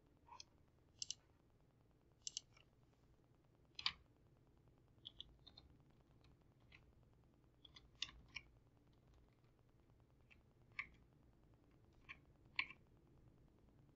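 Faint, scattered clicks of computer keyboard keystrokes and mouse clicks, irregular and about a second apart.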